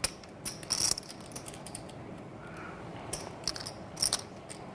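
Poker chips clicking against one another as a player handles a stack of chips at the table: irregular sharp clicks in small clusters.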